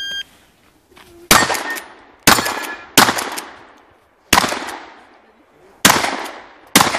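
A short electronic shot-timer beep at the very start, then six shotgun shots fired at uneven intervals of roughly one second, each loud crack trailing off in echo.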